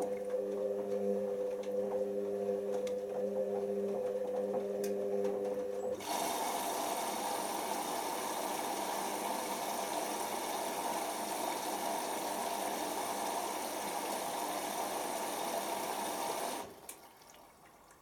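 Hoover Optima OPH714D washing machine in its load-sensing phase: the drum motor hums steadily as it turns the drum, then about six seconds in water rushes in through the inlet valve with a loud, even hiss for about ten seconds and cuts off abruptly near the end.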